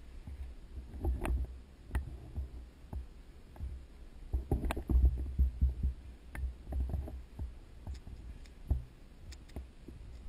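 Handling and movement noise of a camera carried by a moving player: irregular low thumping rumbles and rustles, with scattered sharp clicks and knocks.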